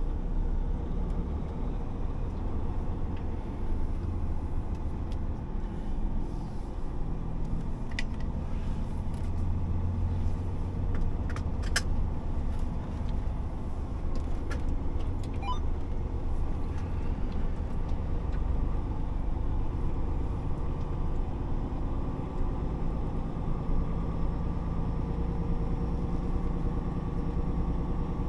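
Truck's diesel engine running steadily with a low drone while driving, with a few short sharp clicks in the middle.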